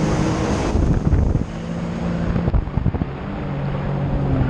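Sea-Doo 155 personal watercraft engine running at a steady pitch while under way, with wind buffeting the microphone and water rushing past the hull. The wind noise eases a little about a second and a half in.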